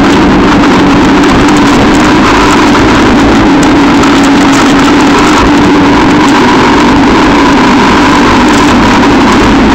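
Quad bike engine running steadily under way, very loud with an unbroken drone.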